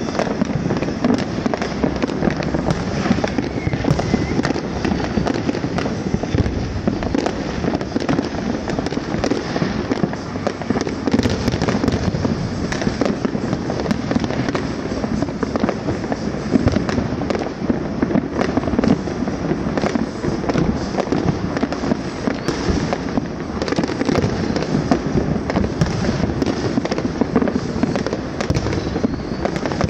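Many fireworks and firecrackers going off at once: a dense, unbroken crackling and popping with no pauses.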